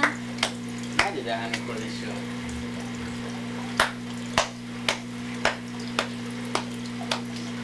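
Hand claps in a slow, even rhythm, about two a second, with a pause of a couple of seconds in the first half: an adult clapping a baby's hands together. A constant low electrical hum runs underneath.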